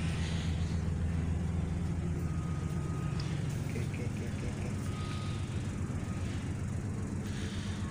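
Ferry's engines droning steadily, heard inside the wheelhouse as a low hum of several pitched tones, with the ship under power and leaving the berth after casting off.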